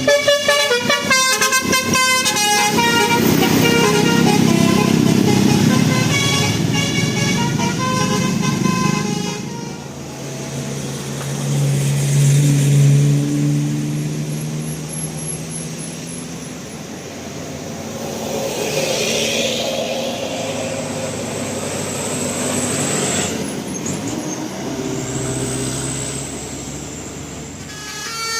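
Bus telolet horn playing its multi-note tune in quick changing tones for about the first nine seconds. It then gives way to heavy vehicle engines and road noise, with the horn tune starting again at the very end.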